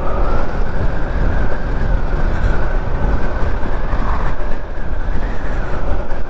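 Steady wind and road rush buffeting the helmet microphone while riding a Zero SR/S electric motorcycle, with no engine note from the near-silent electric drive.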